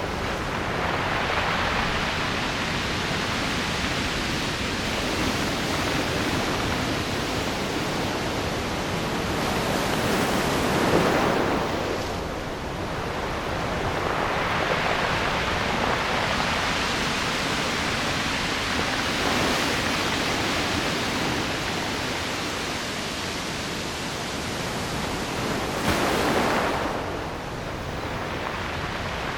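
Ocean surf washing steadily onto the shore, with larger waves breaking and swelling louder about ten seconds in and again near the end.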